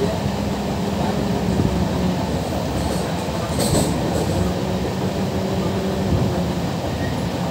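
Passenger train running, with a steady low hum over continuous rolling noise and a short metallic clatter about three and a half seconds in.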